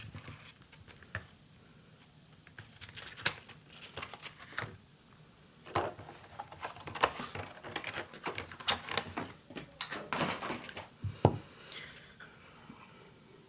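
Packaging of a trading-card starter deck being handled and opened by hand: irregular crinkling of plastic wrap and cardboard, with small clicks and taps.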